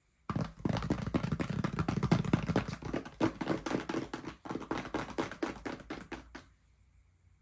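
Fingers tapping and patting on a cardboard product box: a quick, uneven run of light knocks that stops about a second before the end.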